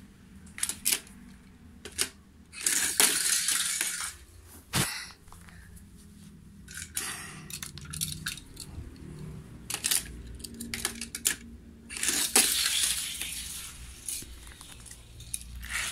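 Die-cast toy cars and plastic track pieces clicking and clinking as they are handled and set up, with two longer rushing noises of a second or so each, about three seconds in and again about twelve seconds in.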